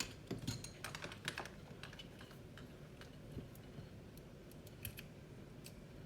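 Light plastic clicks and taps from handling a digital multimeter and its test leads, a quick run of them in the first second and a half, then a few scattered ones.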